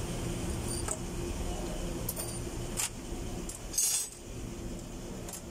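A few light metallic clicks and clinks of tools and parts being handled on a Toyota 2GR V6 cylinder head, the loudest a brief clatter about four seconds in, over a low steady background hum.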